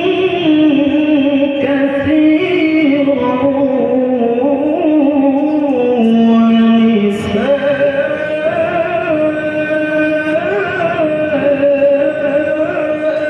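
A man's melodic Qur'an recitation (tilawah) into a handheld microphone: long ornamented notes that bend up and down, with one long steady note about six seconds in and a brief break just after.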